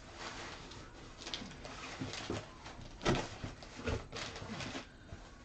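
Cardboard box flaps being pulled open and brown kraft packing paper inside rustling and crinkling, in an irregular series of scrapes and crackles, the sharpest about three seconds in.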